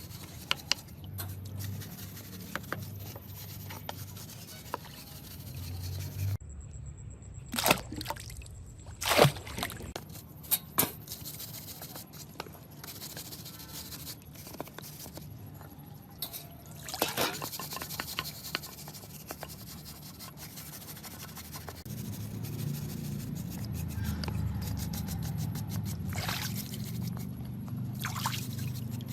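Liquid trickling and dripping, with scattered sharp clicks and knocks, the loudest two close together about a third of the way in.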